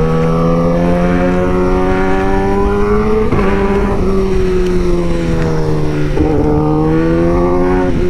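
Sportbike engine heard from the rider's seat while riding in traffic: a steady engine note that climbs slowly and dips briefly twice, about three and six seconds in.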